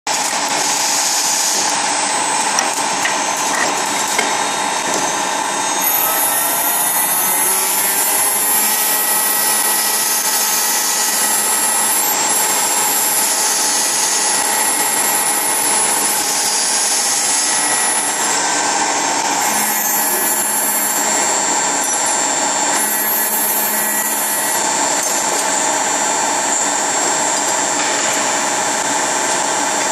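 CNC key-cutting machine running, its milling spindles whining steadily as they cut the teeth of keys, with short bursts of high hiss every few seconds.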